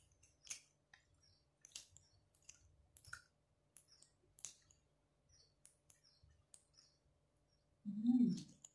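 Faint, scattered soft wet clicks and smacks of a person eating by hand and chewing, picked up close on a clip-on microphone, with a brief low hum-like vocal sound near the end.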